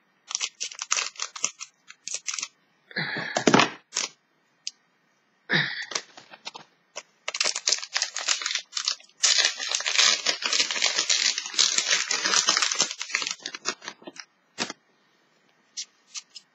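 Foil wrapper of a Pokémon trading card fun pack crinkling and tearing as it is cut with scissors and pulled open by hand. The sound comes in repeated crackly spells, with two short duller sounds about three and five and a half seconds in and the longest stretch of tearing and crinkling in the second half.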